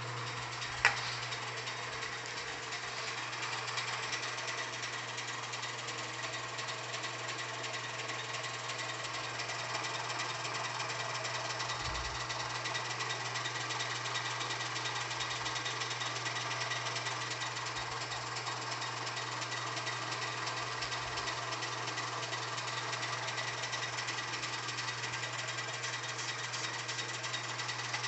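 Wood lathe running steadily with a low motor hum, a small turned workpiece spinning while CA finish is rubbed onto it with a paper towel. A single sharp click about a second in.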